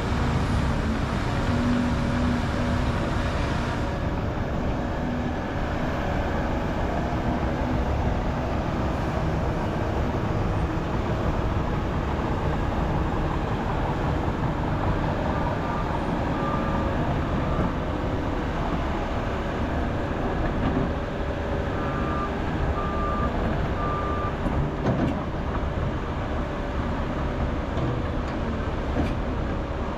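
Heavy diesel earthmoving machinery running steadily. From about halfway through, a reversing alarm beeps intermittently in short runs.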